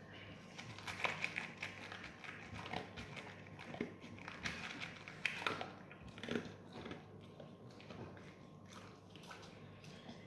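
Chow chow crunching dry kibble from a plate, a run of quick crunches that thins out after about seven seconds.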